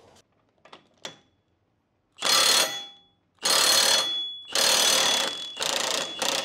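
Milwaukee M18 1,400 ft-lb cordless impact wrench hammering on an axle nut through an impact socket, in four short bursts after a couple of light clicks, with a steady high ring through each burst. It breaks the axle nut loose easily.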